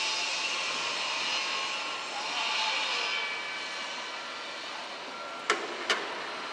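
A distant vehicle's rushing noise that swells and then fades over the first few seconds, followed near the end by two sharp clicks about half a second apart.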